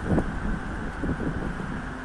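Wind buffeting the microphone in gusts, strongest about a quarter second in, over a low steady rumble of road traffic.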